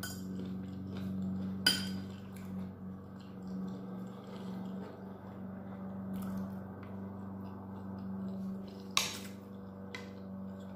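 Metal fork and knife clinking and scraping on a dinner plate while eating, with two sharp clinks, one about two seconds in and one near the end, over a steady low hum.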